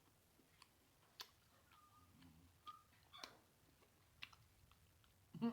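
Faint eating sounds: a few sharp, scattered mouth clicks and smacks while chewing seafood, the loudest about a second in and again past three seconds.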